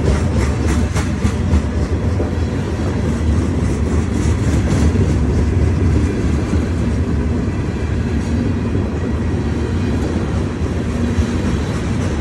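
CSX freight train cars rolling past: a steady, heavy rumble with wheels clicking rapidly over rail joints, the clicks sharpest in the first couple of seconds.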